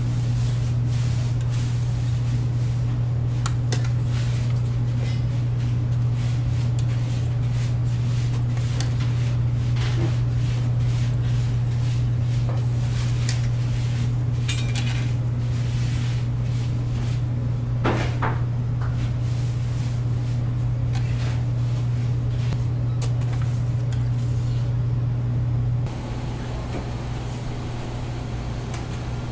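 Steady low machine hum, like a fan or motor, with scattered clicks and knocks of kitchen work over it. The hum drops slightly near the end.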